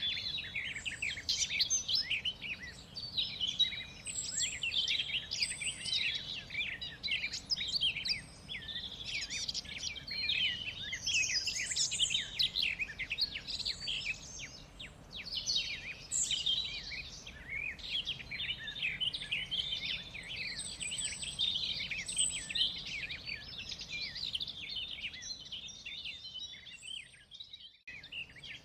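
A chorus of many songbirds chirping and trilling over a soft background hiss. The chorus thins and fades out briefly near the end.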